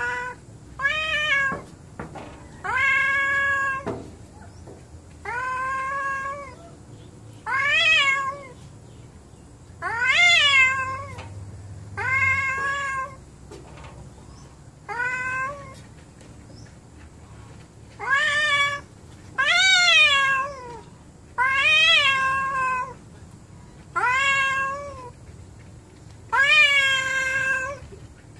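A cat yowling at another cat in an angry standoff: about a dozen long, drawn-out cries, each rising and then falling in pitch, repeated every two seconds or so.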